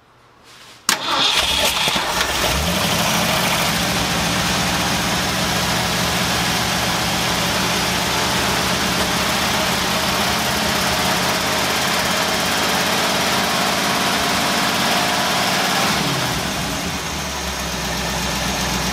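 1979 Ford F250 pickup's engine started, catching almost at once about a second in, then idling steadily and settling to a lower, quieter idle near the end. This is its first start on new spark plugs, plug wires, distributor cap and rotor.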